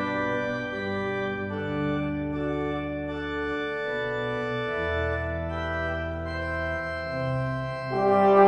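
Organ holding sustained chords in a softer passage, the chords changing every second or two, with the brass ensemble coming back in loudly near the end.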